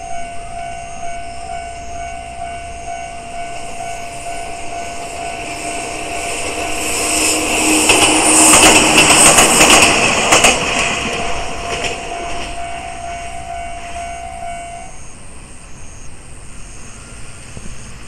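An electric train passes over a level crossing, wheels clacking over the rail joints, loudest about eight to ten seconds in and then fading. The crossing's warning bell rings throughout and stops about fifteen seconds in as the train clears.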